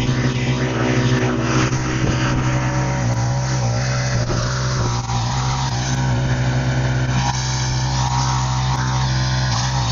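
1974 Allis Chalmers 712H (Simplicity 7012 Hydro) lawn tractor running steadily under load while driving a 42-inch single-stage snow blower, with a higher whine that dips and rises a few times in the second half.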